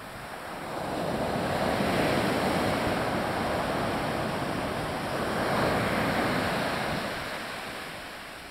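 Ocean surf breaking on a sandy beach and washing up the shore, rising about a second in, swelling twice and fading near the end.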